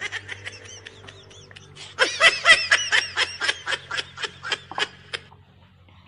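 High-pitched snickering laughter: a short run of quick giggles, then a louder string of about five giggles a second that fades and stops about five seconds in.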